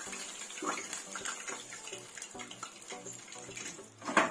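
Pork knuckle deep-frying in hot oil, a steady sizzle, with one sharp loud knock near the end.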